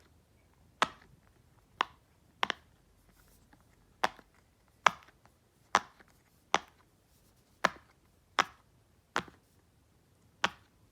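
Silicone Pop It fidget toy having its bubbles pressed through one at a time, each giving a sharp pop, about a dozen pops spaced roughly a second apart. The toy is new and still a little stiff.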